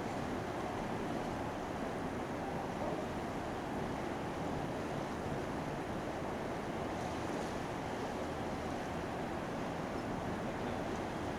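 Steady rushing noise of water and wind, unchanging throughout.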